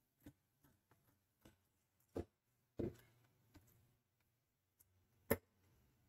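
Fabric shears snipping through fabric in short, separate cuts, with a sharp click about five seconds in.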